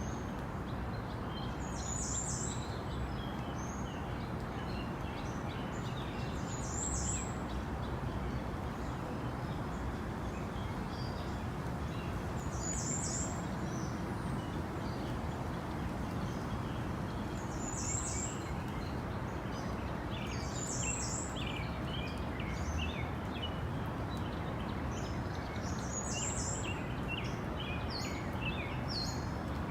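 Tropical rainforest ambience: a steady hiss of background noise under scattered bird chirps, with a short high call repeating every five seconds or so.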